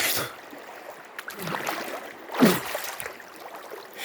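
Water splashing in a river as a person bathes in it: several separate splashes, the loudest about two and a half seconds in, over the steady rush of the flowing river.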